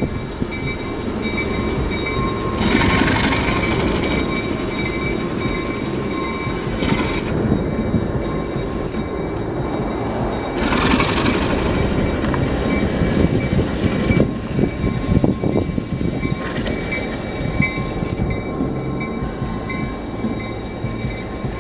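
Diesel road-switcher locomotive's engine running steadily as the locomotive rolls slowly along yard track, with a thin steady whine over the rumble. A rushing, hissing surge comes up briefly four times.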